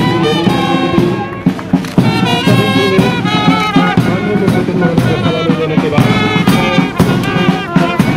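Marching brass band playing a march: trumpets and low brass carry the tune over a steady drum beat.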